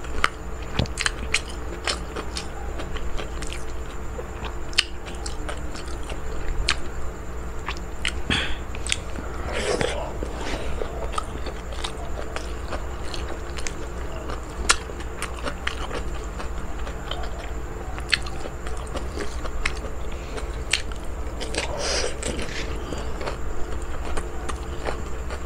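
A person chewing and biting mouthfuls of food eaten by hand, with scattered sharp mouth clicks and smacks and a couple of longer wet chewing smears about ten seconds in and near the end.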